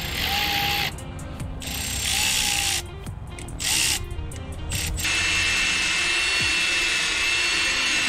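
A small electric power tool run in four bursts, its motor whine bending up and down in the first three short runs. The fourth and longest, about three seconds, holds one steady high whine. Faint background music runs underneath.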